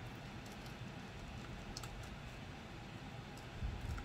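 Scissors snipping a dried-flower sticker: a few faint, scattered clicks and snips, with soft handling noise and a low bump near the end.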